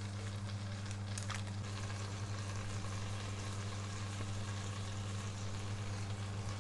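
Crushed garlic cloves frying in melted butter in a pot, a steady sizzle, with a steady low hum underneath and one faint click about a second in.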